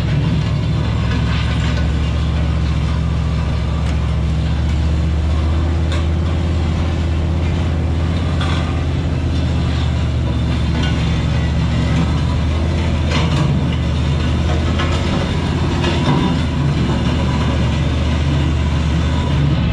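Pickup truck engine droning steadily while towing a heavy steel land plane over a rutted dirt road. The plane's steel frame and tow chains clank now and then as it bounces over the ruts.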